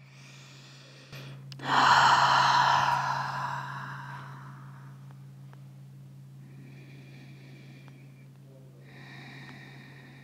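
A person breathing audibly: one long, loud breath that fades over a few seconds, then two softer breaths.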